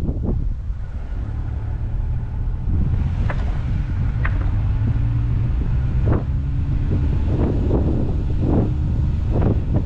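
Car driving uphill on a steep concrete road: a steady low engine and tyre rumble, heard from a camera mounted outside on the roof, with wind buffeting the microphone in repeated gusts.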